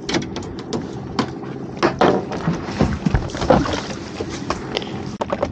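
Seawater splashing and dripping as a pot buoy and its rope are grabbed and hauled up over the side of a small boat, with scattered sharp knocks and clicks.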